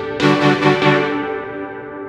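Background music: a melodic phrase that starts just after the beginning and fades away over the second half.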